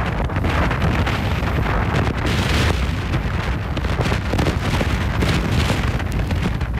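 Gale-force wind gusting near 60 mph and buffeting the microphone: loud, continuous wind noise with a deep rumble that swells and eases with the gusts.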